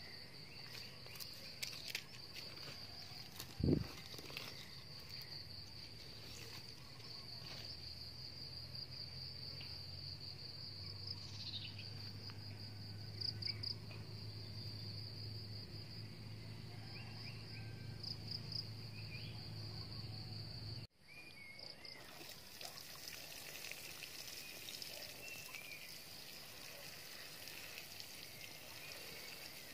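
Insects chirring in a steady high drone, pulsing now and then, with one dull knock about four seconds in. After a cut about 21 seconds in the chirring stops and a soft hiss of water sprinkling from a watering can's rose onto loose soil takes over.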